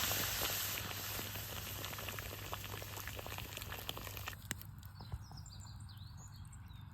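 A steady hiss with scattered crackles that cuts off abruptly about four seconds in, leaving a quieter background with faint high chirps.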